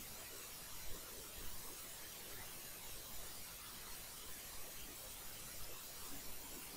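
Faint steady hiss of room tone, with a few soft, faint ticks.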